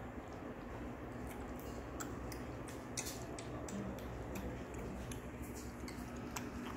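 Adult cat suckling milk from a feeding bottle: a run of irregular small clicks of its mouth working on the bottle's nipple, thickest in the middle, with a few more near the end.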